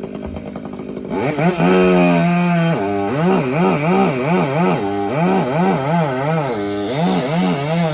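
Chainsaw cutting a log into short lengths. The engine comes up to full speed about a second in, then its pitch rises and falls about three times a second as the chain works through the wood, then holds steady near the end.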